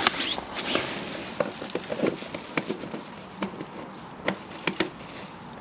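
Handling noise: nylon tent fabric and an inflatable sleeping pad rustling during about the first second, then scattered light clicks and knocks as a small night lamp is handled and set down on the pad.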